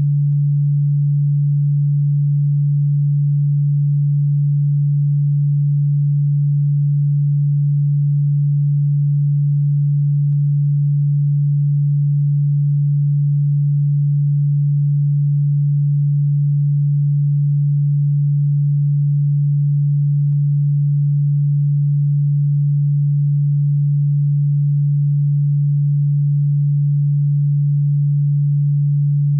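A steady, unchanging low-pitched pure tone: a synthesized sine-wave bug-repellent sound. It is pitched low and audible, not ultrasonic as its 'ultrasonic anti-roach' label claims.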